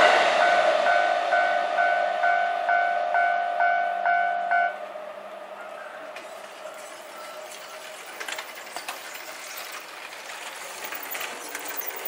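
Japanese railway level-crossing warning bell ringing a two-tone ding about twice a second while the noise of a Keihin-Tōhoku line commuter train dies away. The bell stops suddenly about five seconds in, the sign that the train has cleared and the crossing is opening.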